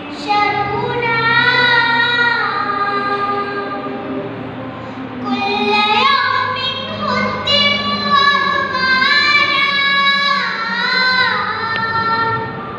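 A young girl singing an Arabic poem solo and unaccompanied, in a melodic chant of long, drawn-out phrases with wavering, sliding notes. She pauses briefly for breath about four and a half seconds in, then carries on with a long second phrase.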